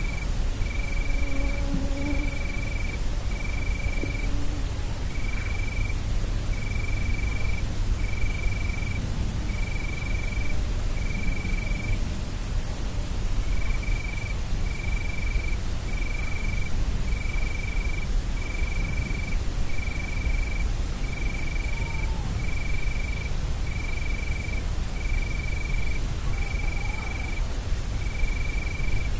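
A short, high, cricket-like chirp repeating about once a second, with one longer pause midway, over a steady low hum.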